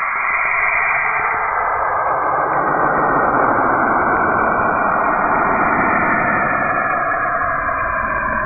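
Saturn's radio emissions, recorded by a spacecraft and converted into sound: an eerie, steady rushing hiss with faint drifting tones. It grows fuller and deeper from about two seconds in.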